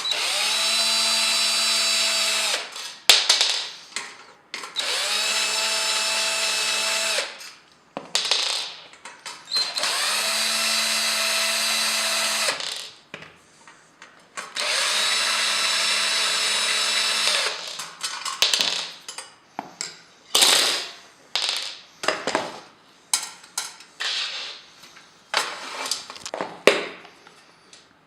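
Cordless drill-driver running in four bursts of about two and a half seconds each, every one spinning up and winding down, as when screws are driven out of the fan housing to take it apart. After the fourth burst comes a run of irregular clicks and knocks of parts being handled.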